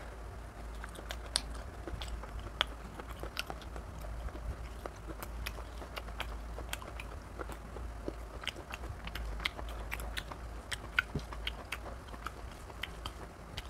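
Wet chewing and lip smacks of a mouthful of mutton curry and rice, with the squish of fingers mixing rice and gravy on a steel plate: a steady scatter of sharp little clicks, several a second.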